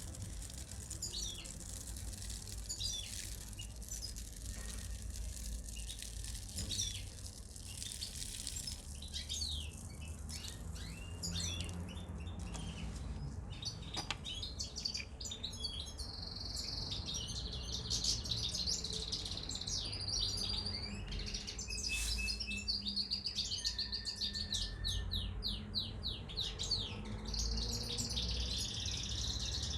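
Small birds chirping: at first quick falling chirps about once a second, then from about halfway a denser, fast trilled twittering, over a steady low hum.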